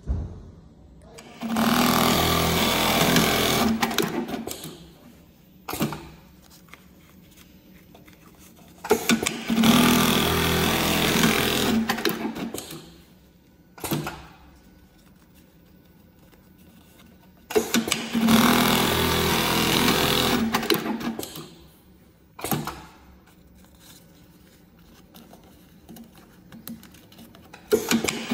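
QURIS automatic label sewing machine stitching labels in three runs of about three to four seconds each, with short brief machine bursts in the quieter pauses between runs.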